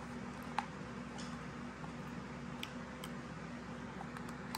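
Blue-and-gold macaw chewing a toy duck with its beak: scattered sharp clicks and ticks at irregular intervals, the loudest about half a second in.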